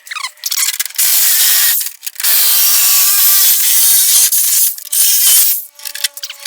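Power tool cutting through the sheet-metal body of a 1968 Pontiac GTO. It gives a loud, harsh hiss in two passes, a short one about a second in and a longer one of about three seconds, with brief metallic squeals at the start and near the end.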